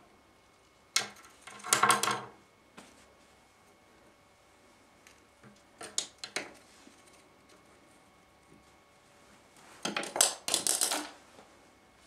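A cockatiel's beak clicking and rattling on a slim paintbrush handle as it bites and pecks at it: three short bursts of rapid hard clicks, about a second each, the first near the start, one in the middle and one near the end.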